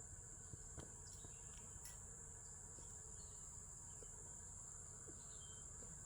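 Faint, steady high-pitched chorus of insects such as crickets, with a few soft ticks.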